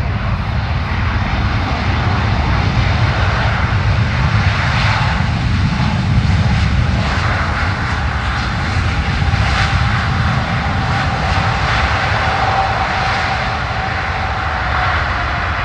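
Airbus A380 jet engines running loudly during the landing rollout, with the inboard engines in reverse thrust. The sound is a steady, dense rumble and rush, with a faint whine that fades away near the end as the thrust comes off.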